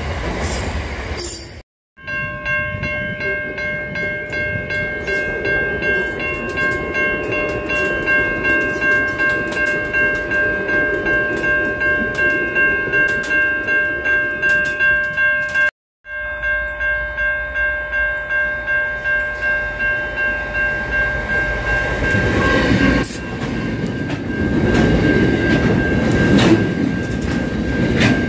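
A train passes, then after a cut a level-crossing warning bell rings steadily at about two strokes a second over the low rumble of a passenger railcar. After a second cut the bell keeps ringing, and from about three-quarters through a long freight train rolls past with a louder rumble and clatter of wagons.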